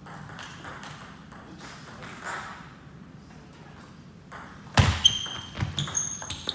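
Table tennis ball being served and played: a sharp click about five seconds in, the loudest sound, then a quick run of clicks with a short ringing ping as the ball strikes bats and table.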